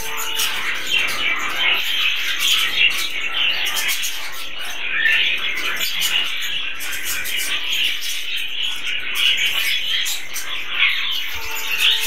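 A flock of budgerigars (budgies) chattering and warbling without a break.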